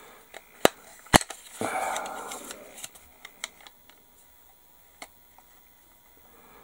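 Hard plastic clicking as the two styrene front-fuselage halves of a 1/72 B-52G model kit are squeezed together in a dry fit. Two sharp clicks about a second in, a short rubbing rustle, then a few lighter ticks.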